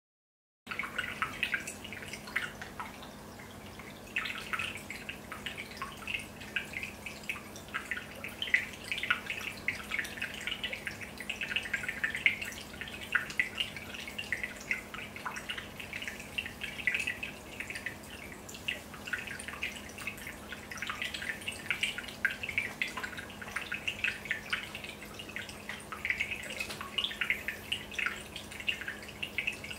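Aquarium aeration: a stream of air bubbles bubbling and popping in the tank water, a dense, uneven patter of small splashes, over a steady low hum. It starts abruptly about half a second in.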